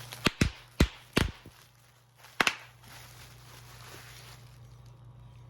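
Handling an opened package: five sharp knocks and thuds in the first two and a half seconds.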